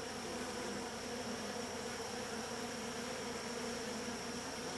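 Honeybees buzzing around an open hive, a steady, even hum with a thin steady high tone above it.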